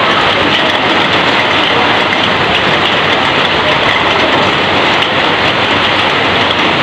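Heavy rain falling on corrugated roofing and streaming off its edge: a loud, steady hiss.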